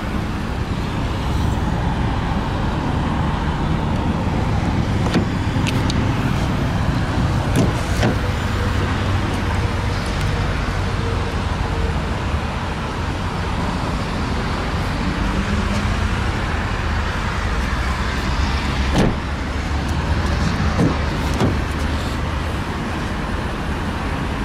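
2015 Ford Explorer's 3.5-litre V6 idling steadily, a low even rumble, with a few short clicks and knocks scattered through.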